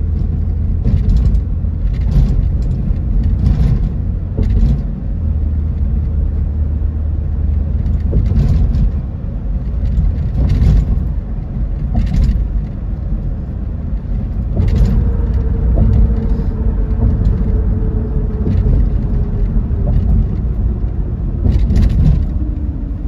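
A car driving along a city ramp: steady low road and engine rumble with brief thumps every second or two. Over the second half a single tone slowly falls in pitch.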